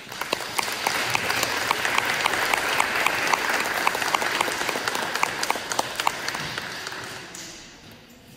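Audience applauding, starting suddenly and holding a steady clapping before fading out about seven seconds in.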